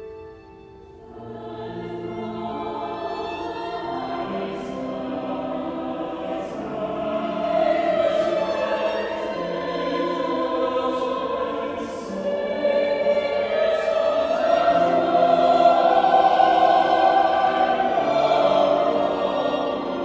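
Mixed SATB choir singing, coming in about a second in and growing louder, fullest in the second half, with crisp 's' consonants cutting through the held chords.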